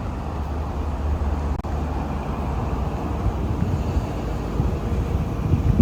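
Komatsu PC200-11 hydraulic excavator's diesel engine running steadily, a low even hum.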